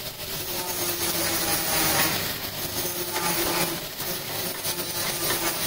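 Buffing machine polishing a stainless steel chafing dish: a steady motor hum under the rushing hiss of the wheel against the metal.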